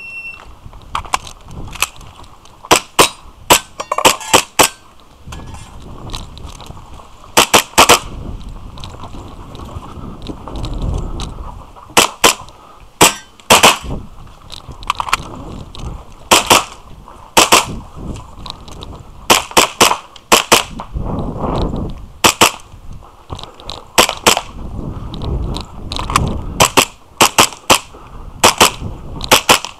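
A shot timer gives a short start beep. A custom-built Tokyo Marui Hi-Capa 5.1 gas blowback airsoft pistol then fires sharp cracks, mostly in quick double and triple shots with pauses between strings, over low rustling of the shooter moving between positions.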